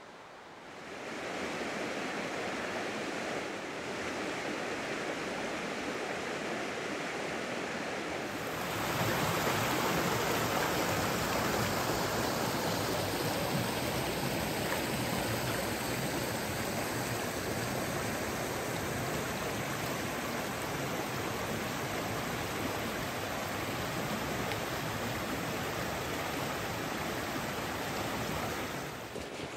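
Steady rush of running water, which grows louder and fuller about eight seconds in.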